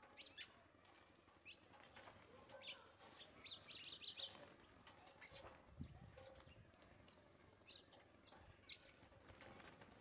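House sparrows chirping faintly: scattered short chirps, with a quick run of chirps about four seconds in. A soft low thump comes just before six seconds in.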